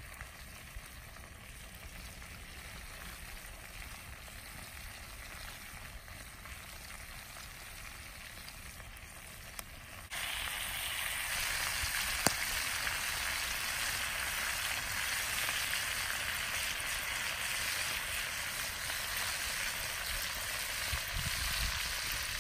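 Crawfish deep-frying in rendered raccoon fat: a steady sizzle of bubbling fat that gets louder about ten seconds in, with a single click a couple of seconds after that.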